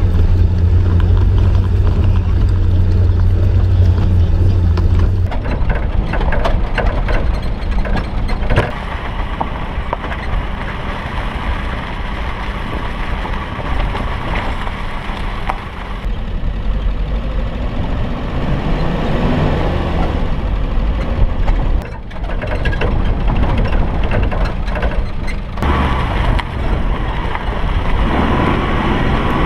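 Suzuki Vitara driving over a rough dirt track: engine running, with tyre and body noise and scattered knocks and rattles. A steady low drone in the first five seconds gives way to rougher, uneven noise.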